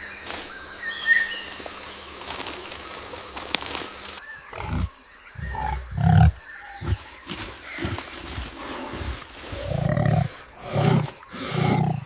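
A large wild animal growling: a series of short, deep calls roughly once a second, starting abruptly about four seconds in. Before that, a steady insect-like hum with faint ticks.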